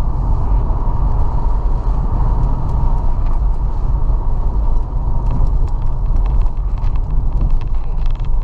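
A car driving, heard from inside the cabin: steady engine and tyre noise, mostly a deep rumble.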